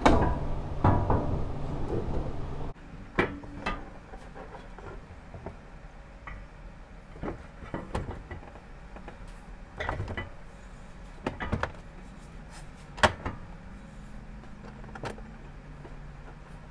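Scattered knocks and clanks from a MetalTech Goblin aftermarket bumper being handled and set against the truck's front end for a one-person test fit. A louder, busier clatter in the first few seconds cuts off abruptly, then single knocks follow every second or two, the sharpest about thirteen seconds in.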